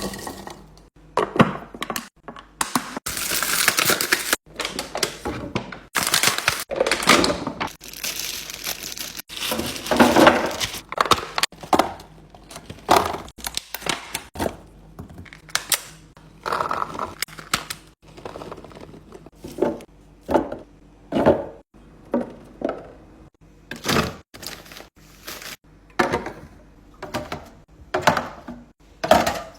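Containers and packaged food being set down and arranged in a refrigerator: a string of thunks and clicks of plastic and glass, with packaging crinkling at times.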